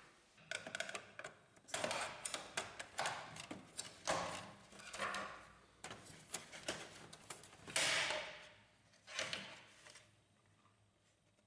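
Plastic right side cover of an HP Laser 100-series printer being pried off its snap-fit tabs: a run of irregular clicks, snaps and plastic scraping, with the loudest burst about eight seconds in.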